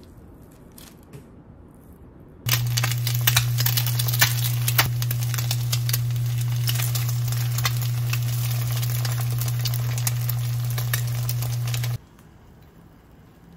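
Eggs frying in oil in a small pan: a loud, dense sizzling with many sharp crackles and pops over a steady low hum. It starts suddenly about two seconds in and cuts off suddenly near the end. Before it, faint scraping of a knife back on pollock roe.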